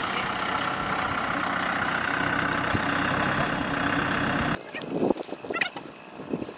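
Kubota M6040SU tractor's diesel engine running steadily as the tractor drives, cutting off abruptly about four and a half seconds in. Quieter scattered sounds follow, with a brief wavering call about a second later.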